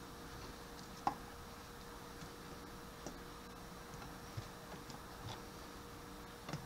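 Faint, irregular light taps and clicks, a handful in all, the sharpest about a second in, as pieces of chopped celery are dropped into glass baking dishes of raw chicken and potatoes.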